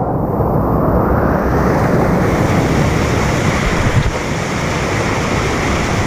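Loud, steady rushing of white water from a small river cascade pouring between boulders, heard right beside the microphone. It swells over the first second and then holds.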